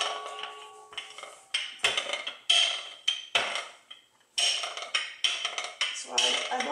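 A wooden rolling pin knocking and rolling on a wooden cutting board as pie crust dough is rolled out: a series of sharp wooden clacks, irregular at about one or two a second, each dying away quickly. A short ringing tone sounds near the start.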